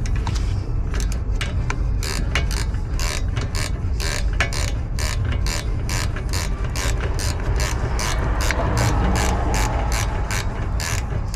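Hand ratchet clicking as a rear brake caliper bolt is run in by hand, a few scattered clicks at first and then a steady rhythm of about four clicks a second, over a steady low rumble.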